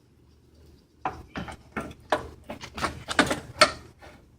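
A run of light clicks, knocks and rattles from the push mower's grass-catcher bag and its frame being handled and fitted onto the mower. It starts about a second in and stops near the end.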